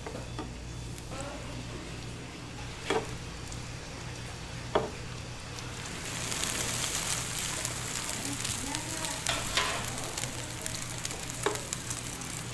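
Egg sizzling in oil on a hot electric griddle, with plastic spatulas knocking and scraping against the pan as a large rolled omelette is turned and pressed. The sizzle gets louder and hissier about halfway through.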